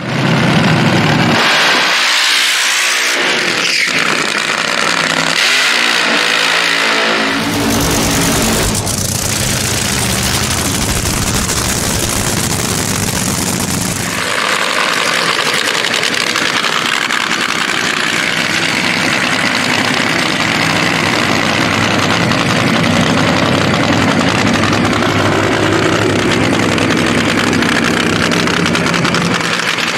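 Supercharged nitro drag-racing engines, very loud. They rev and run at full throttle in the first half. From about halfway through, a nitro funny car engine runs at a steady idle.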